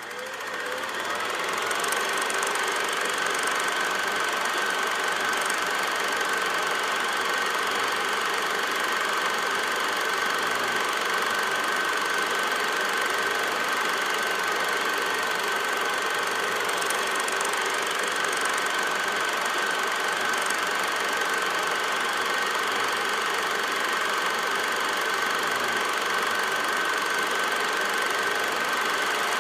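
Film projector running: a steady motor hum with a high, even whine over mechanical noise, coming up to speed in the first couple of seconds.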